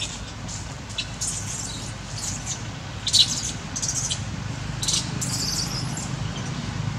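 A baby monkey crying in a string of short, high-pitched squeaks and squeals, the loudest about three seconds in. A steady low hum runs underneath.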